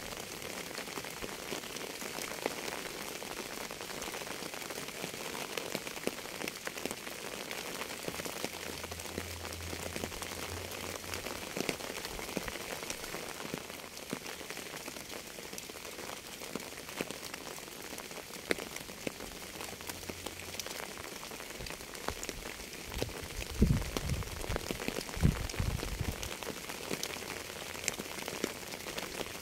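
Steady rain falling on a surface, a dense patter of individual drops ticking. Two brief low thumps come near the end.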